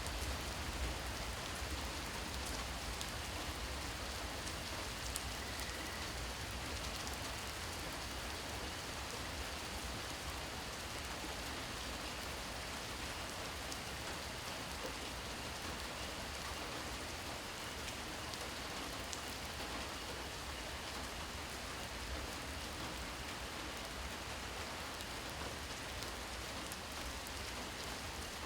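Steady rain falling: an even hiss with many small drop ticks, over a faint low rumble.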